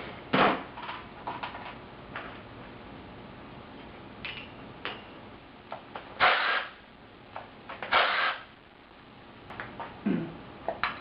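Scattered short clatters and scrapes of hand tools and metal engine parts, with the loudest two a little past the middle, as the oil pump and its drive chain are taken off a rotary engine.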